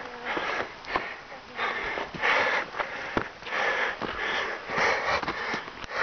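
A person breathing hard and fast close to the microphone, about one and a half breaths a second, winded from climbing a steep trail. Footsteps crunch on dirt and rock between the breaths.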